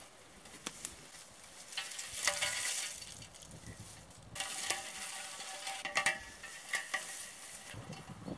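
Rusty steel combine harvester wheel rim being handled and dragged out of a scrap heap: metal scraping and clanking with a faint ring, amid crackling of dry twigs. A few sharp clicks come first, then two spells of louder scraping.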